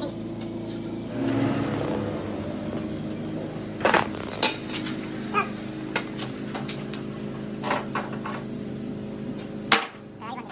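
Sharp metallic clinks and knocks of steel on steel as a chuck key works a metal lathe's chuck, over a steady machine hum; the loudest strike comes near the end, just before the hum drops.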